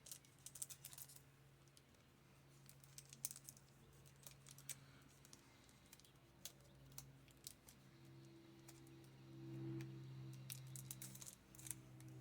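Near silence with scattered faint clicks and soft rustles of trading cards being handled and flipped, over a faint steady low hum that grows slightly louder after about eight seconds.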